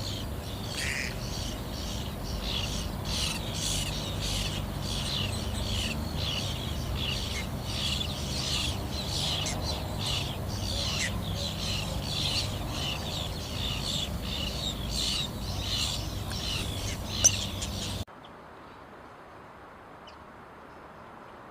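Baby birds in the nest giving constant rapid, high begging calls, hungry for food, with a single sharp click shortly before the calls cut off suddenly, leaving a low background hiss.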